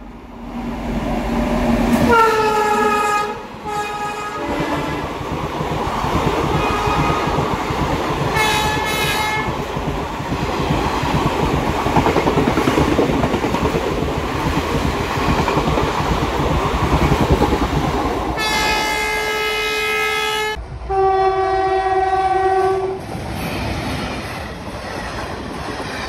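Indian Railways express trains running through at speed: an electric locomotive's horn sounds twice as the train approaches, then wheels rumble and clatter over the rail joints for many seconds as the coaches pass, broken by a short pulsing horn note and then a long horn blast. After that a second express, hauled by a WAP-4 electric locomotive, blows its horn for about two seconds as its coaches rush by.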